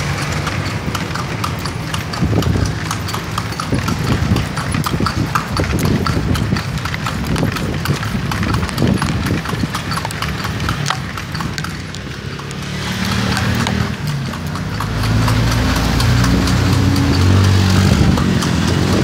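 Kalesa horse's hooves clip-clopping steadily on an asphalt street as it pulls the carriage. From about two-thirds of the way in, a low engine hum from a nearby motor vehicle joins and grows louder.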